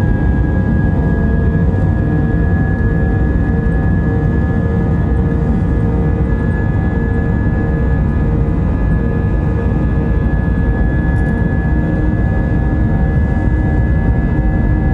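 Airbus A320 cabin noise heard from a window seat: the jet engines running steadily on the ground, a loud even roar with a thin steady high whine over it.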